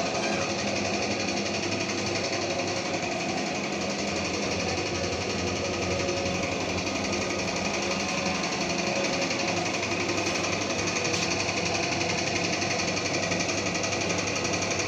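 Air compressor running steadily with a fast, even mechanical chatter, supplying air for spray-painting a speaker cabinet.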